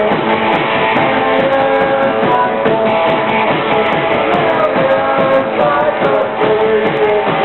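Live rock band playing loud, with guitar to the fore.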